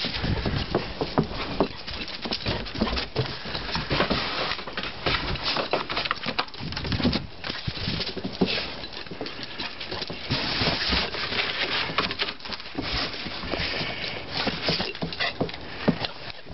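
Footsteps and a dog's paws crunching and pattering in thin fresh snow, a dense run of small irregular crackles.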